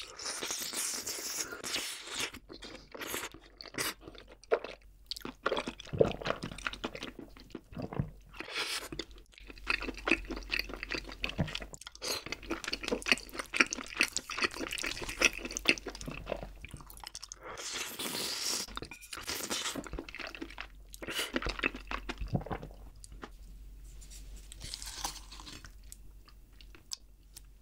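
Close-miked chewing of braised chicken in a creamy rosé sauce (rosé jjimdak): wet mouth sounds with a run of quick clicks and smacks, eased off near the end.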